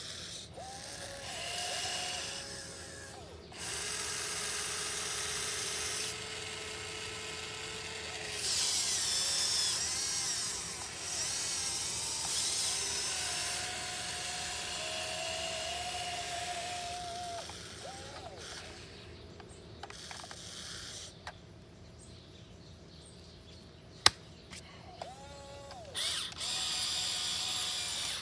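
Electric gear motors of a 1580 RC excavator whining in repeated stretches as the boom, arm and bucket move, the pitch gliding up and down as each motor starts and stops. A single sharp click about 24 seconds in.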